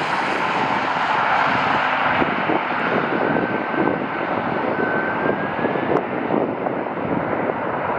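Jet airliner's engines as it comes in to land: a steady rush of engine noise whose high hiss fades as the aircraft moves away, with a faint thin whine in the middle.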